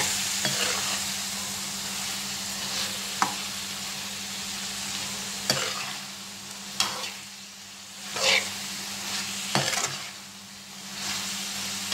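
Fried okra and onions sizzling in masala in a frying pan while a metal spatula stirs them, scraping and knocking against the pan every second or two.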